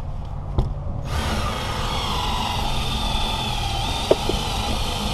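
Powered windshield cut-out tool switching on about a second in and running steadily as it cuts through the urethane bead holding the windshield, with a couple of light knocks near the end.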